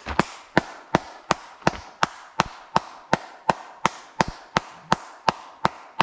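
Sharp, evenly spaced hand claps, just under three a second, kept up steadily as a warning to brown bears that people are on the trail.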